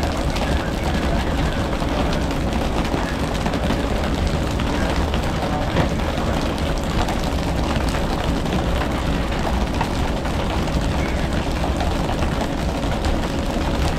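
Boat engine running steadily under a constant rush of wind and sea noise, with one sharp knock about six seconds in.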